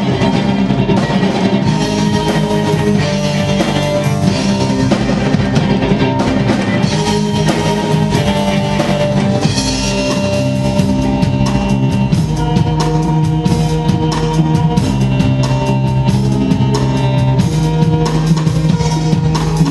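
A rock song played by a symphonic orchestra of strings with a drum kit, at a loud, steady level with a regular drum beat.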